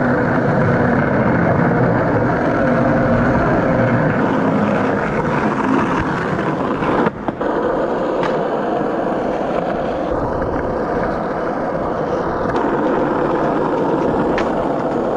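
Skateboard wheels rolling fast on concrete, a steady rolling rumble, with a brief break about seven seconds in.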